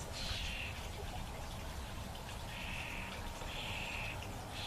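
A bird repeating a short call note four times, each note about half a second long, with the first one falling in pitch. Under it runs the steady rumble of highway traffic.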